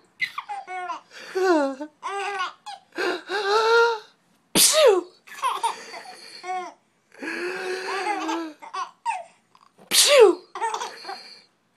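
A baby giggling and laughing in runs of high little laughs. A sneeze cuts in about four and a half seconds in and another near the end, each followed by fresh giggling.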